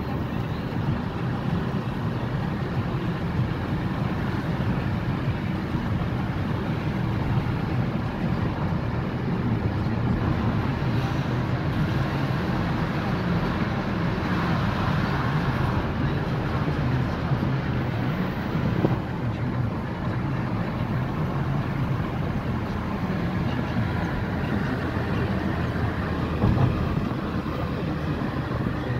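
Steady road noise inside a moving car's cabin: low engine hum and tyre rumble on asphalt. It swells for a few seconds around the middle, and there are two brief louder jolts, one past the middle and one near the end.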